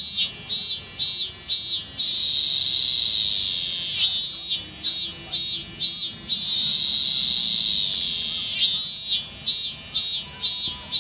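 Robust cicada (minmin-zemi, Hyalessa maculaticollis) singing close by. A steady high buzz is broken three times by runs of four or five pulsing 'min-min' notes, about two and a half a second.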